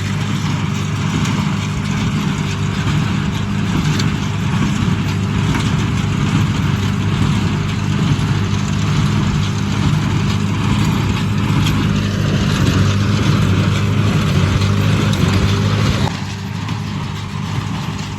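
Case 830 LP tractor's LP-gas-fuelled engine running steadily, pulling a New Holland 282 square baler. The sound eases off a little about sixteen seconds in.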